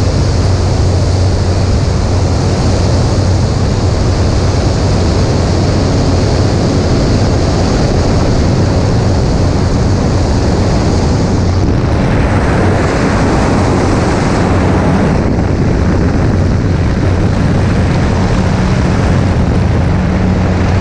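Aerobatic plane's engine running with air rushing over the airframe, heard from onboard: a loud, steady roar over a low hum, its tone shifting about twelve seconds in and again a few seconds later as the plane manoeuvres.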